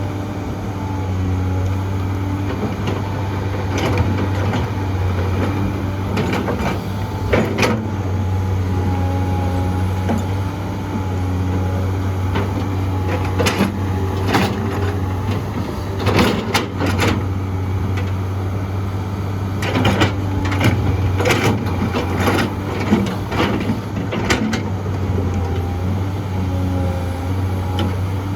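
Excavator's diesel engine running steadily with a deep hum, with scattered knocks and clanks from the working machine as it digs and loads dirt into a dump truck.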